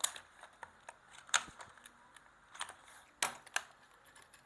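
Plastic blister packaging being handled and opened to free a Hot Wheels premium die-cast car, giving a few sharp clicks and crackles, two of them close together near the end.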